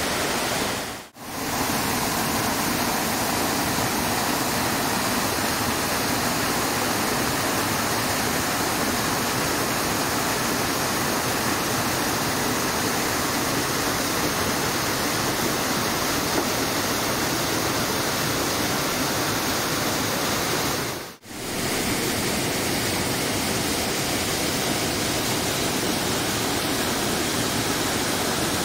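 Mountain river cascading down a rocky waterfall into a churning pool: a steady, dense rush of falling water. The sound drops out briefly twice, about a second in and again about twenty-one seconds in.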